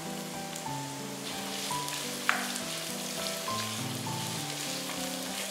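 Diced onions sizzling in hot oil in a non-stick wok as they are stir-fried with a wooden spatula, with one sharp tap a little over two seconds in. Light background music runs underneath.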